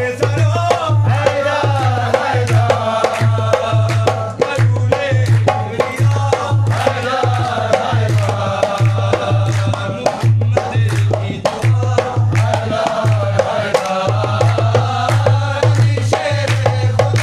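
Devotional manqabat sung by a male lead voice with other men joining in, over a hand-played barrel drum (dholak) beating a steady, driving rhythm, with hand claps.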